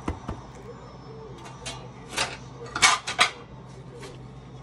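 Metal fork clinking and scraping against a baking dish as it digs into a baked lasagna: a couple of light clicks at the start, then a few short scrapes in the middle.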